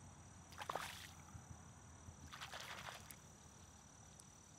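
Two short splashes at the water's edge as a hooked pike is landed by hand, the first about a second in and the second near three seconds.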